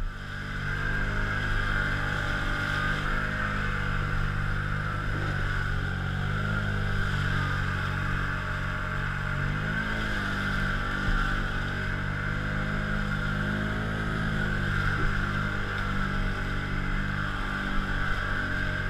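Quad bike (ATV) engine running under load as it ploughs through mud and puddles, its pitch rising and falling gently with the throttle.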